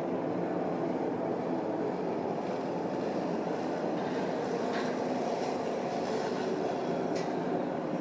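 The unexplained 'strange sound in the sky': a steady, unbroken low drone with faint held tones in it, and brief higher squeaks a little past the middle and again near the end.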